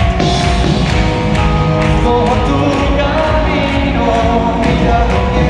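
Live pop-rock band playing, with a male lead vocal over a steady drum beat.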